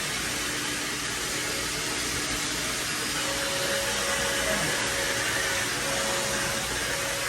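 Vacuum cleaner running steadily: an even rush of air with a faint steady hum in it.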